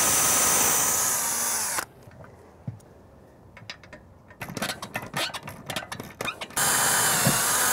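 A cordless drill runs twice, boring into the house siding: first for about two seconds at the start, then again near the end. In between come scattered clicks and a clatter of knocks from the metal hose reel being handled against the wall.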